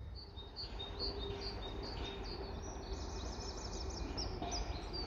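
Small songbird singing: short high chirps repeated about twice a second, breaking into a quick trill about three seconds in, over a steady low rumble.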